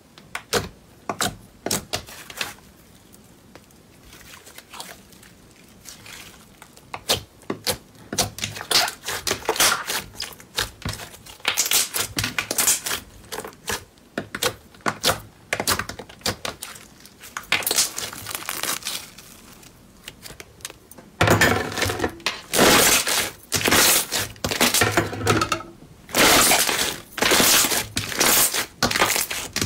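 Glossy slime being pressed, poked and kneaded by hand, giving irregular wet pops, clicks and crackles. About two-thirds through, as it is stretched and pulled apart, the popping grows much louder and denser.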